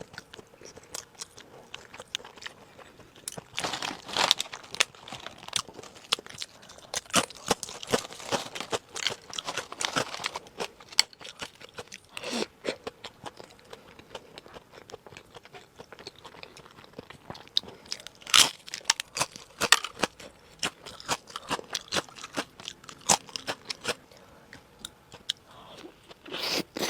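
A person chewing and biting into sushi, with irregular wet clicks and short crisp strokes of eating sounds throughout.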